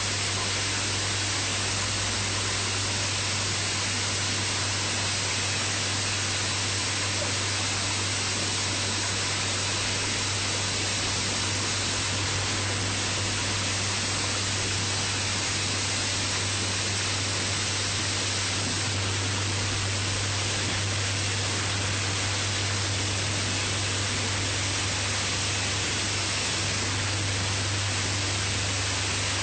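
Water rushing steadily through a rooftop rainwater filter, an even, unbroken rush with a low hum beneath it.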